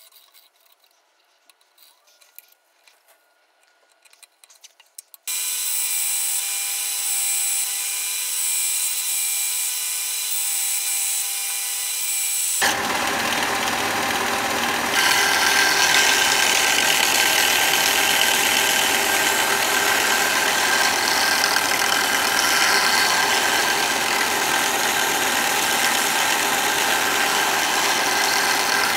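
A few light clicks of the gouge and jig being handled, then a Ryobi BDS-1010 belt sander switches on about five seconds in and runs with a steady whine. From about thirteen seconds a steel bowl gouge is ground against the moving sanding belt, a louder, rough grinding noise over the motor.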